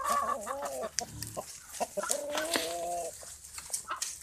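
Chickens clucking as the flock runs loose, with two longer drawn-out calls: one at the start and another about two seconds in.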